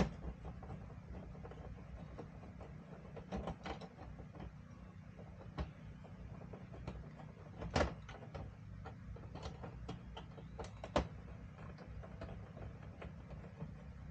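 Scattered metallic clicks and clinks of a ratchet with a socket extension working on the fender's Torx screws, with a few louder knocks, over a low steady hum.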